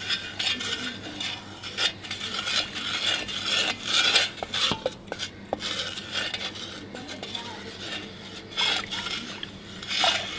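Wooden spoon stirring a pot of sweetened hibiscus drink in an aluminium pot, grating against undissolved sugar on the pot's bottom with a rasping scrape at each uneven stroke: the sugar has not yet dissolved.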